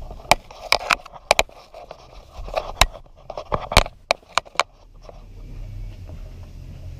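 A string of sharp clicks and knocks, then a low steady hum from about five seconds in.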